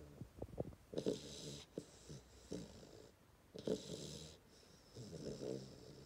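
A ten-week-old Hungarian Vizsla puppy snoring in its sleep, with a snore about every second and a half and a few short clicking breaths near the start.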